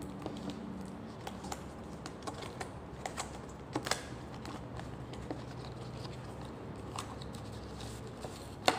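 Small paper product box being opened and handled by hand: scattered light clicks and taps of cardboard and packaging, with a couple of louder clicks about four seconds in and one near the end.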